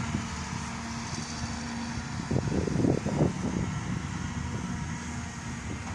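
Diesel excavator engine running steadily, with a few louder, rougher surges about two to three and a half seconds in.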